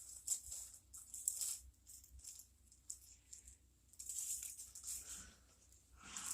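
Plastic bag and paper rustling and crinkling in irregular bursts as they are handled, with a few sharper crackles.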